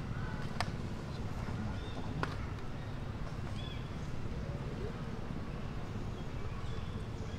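Outdoor ambience with a steady low rumble, two sharp clicks in the first couple of seconds, and a few faint, short high chirps.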